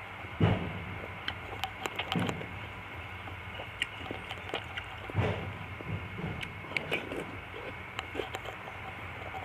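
Close-up eating sounds: a person chewing and swallowing spoonfuls of fruit soup with nata de coco, with scattered small clicks and soft wet thumps. A faint steady high tone runs underneath.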